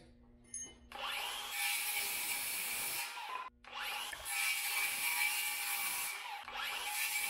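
Circular saw running in three bursts of about two seconds each, cutting through a wooden closet rod.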